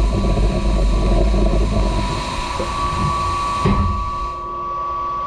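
Studer S41 CNC cylindrical grinder running through its final spark-out on a hardened O2 tool-steel part: the hiss of flood coolant spraying onto the wheel and workpiece over a low rumble, with a steady whine from the machine. Nearly four seconds in there is a knock and the coolant hiss falls away, leaving the machine's steady whine.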